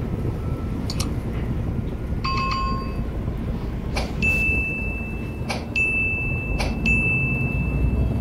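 Inside a moving city bus: a steady engine and road rumble, overlaid with clicks, a short chime about two seconds in, and a high steady ringing tone from about four seconds in that is broken by several clicks. These are the added sound effects of a subscribe-and-bell button animation.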